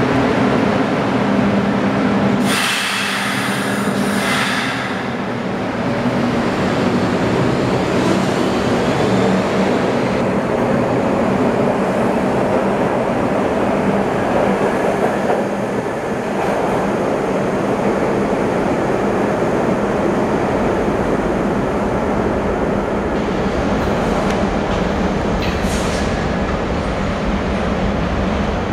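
PATCO Speedline stainless-steel subway train pulling out of an underground station: a steady rumble of motors and wheels on the rails as the cars pass and draw away, in a reverberant station. A loud hiss lasts about two seconds near the start, and brief high wheel squeals come near the end.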